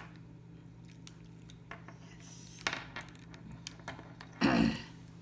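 Metal padlock being worked by hand: scattered small metallic clicks and rattles, with a louder clack about four and a half seconds in. The lock is stiff and dry for want of lubrication.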